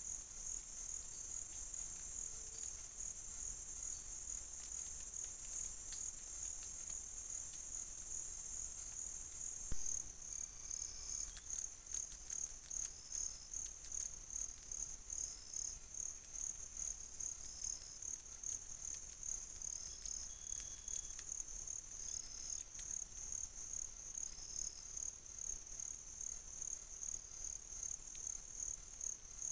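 Forest insects chirping in a steady, high-pitched pulsing trill. About ten seconds in there is a sharp click, after which the chirps come as distinct pulses, about two a second, with a shorter, lower note every second and a half or so.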